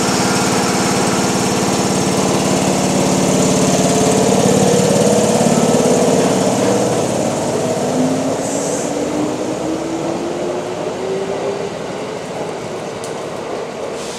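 Kintetsu 8400-series electric train pulling out of the station: a steady hum, then a whine from the traction motors that rises in pitch as it gathers speed. The whine fades as the train moves away.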